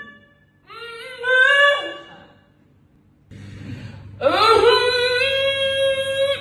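A man singing alone in a high-pitched voice: a short wavering phrase about a second in, then after a pause a long note that swoops up and is held steady before it cuts off.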